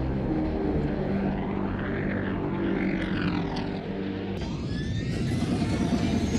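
Sci-fi starship engine sound effect of a Kom'rk-class fighter transport, the Gauntlet, passing at a distance, swelling and fading over held music notes. About four seconds in it changes suddenly to a louder engine rumble with rising whines as the ship approaches.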